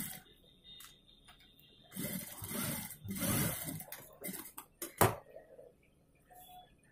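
Cloth rustling and sliding as a garment is handled and shifted on an industrial sewing machine table, in two longer stretches, followed by a single sharp click about five seconds in.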